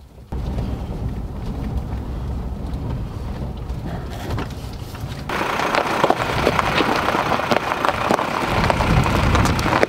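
Nissan Navara pickup driving slowly along a loose gravel track. At first there is a low, steady rumble of engine and tyres heard from inside the cab. About five seconds in, this gives way to a louder, dense crunching and crackling of the tyres rolling over stones, heard close to the front wheel.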